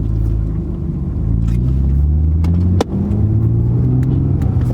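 BMW E36 320i's M52B20 straight-six engine accelerating under way, its pitch rising steadily. Nearly three seconds in there is a brief dip with a click, then it pulls on again.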